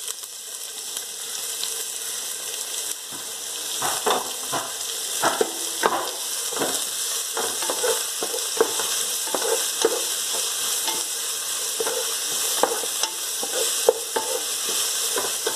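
Chopped onion sizzling in hot oil in a pan. From about four seconds in, it is stirred, with many short knocks and scrapes of the utensil against the pan.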